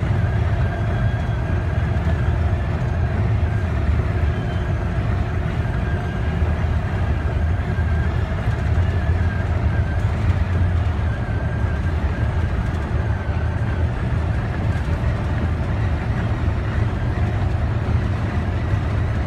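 Steady cabin noise of a car cruising on the highway: a low rumble of engine and tyres on the road, with a faint steady whine above it.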